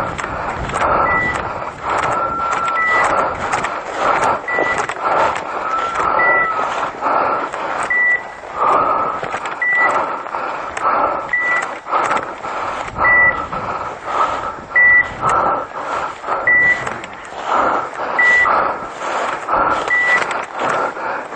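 A pointing dog's beeper collar beeping at a steady pace, about once every second and a half or so: the signal that the dog is standing on point. Under it, brush and dry scrub crackle and rustle as someone pushes through.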